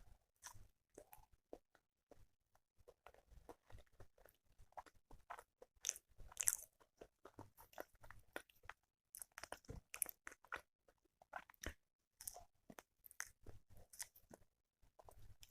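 Close-miked chewing and mouth sounds: irregular soft clicks and wet smacks, with a few louder ones about six seconds in.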